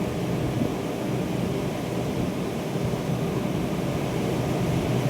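Steady low machine hum and rumble, unchanging throughout.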